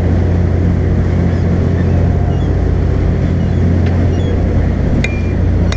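A charter fishing boat's engine drones steadily while under way, with the rush of water from the wake. A couple of sharp clicks come near the end.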